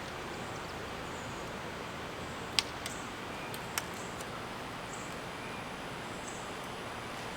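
Steady outdoor background hiss, broken once about two and a half seconds in by a single sharp click, with two fainter ticks in the following second.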